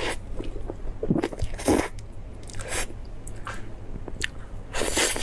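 Close-miked eating: a run of bites and wet chewing on a durian mille-crepe cake, in irregular bursts with the loudest near the end.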